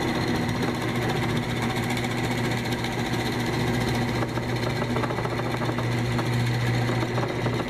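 Harbor Freight 10-inch 12-speed benchtop drill press running on its first test: the electric motor and belt-driven spindle hum steadily at an even speed.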